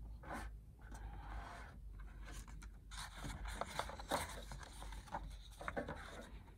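Pages of a picture book being opened and turned by hand: faint, intermittent paper rustles and rubs with a few light clicks.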